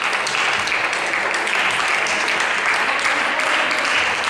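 Applause: dense, steady clapping from spectators and players, with some voices mixed in.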